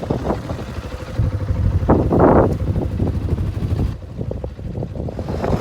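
Wind buffeting the microphone outdoors: an uneven low rumble with a stronger gust about two seconds in.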